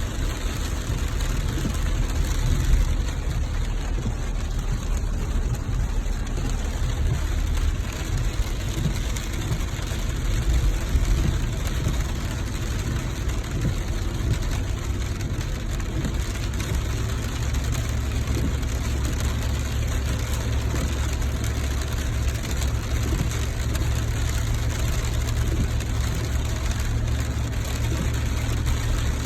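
Steady rain over a car's low engine and road rumble.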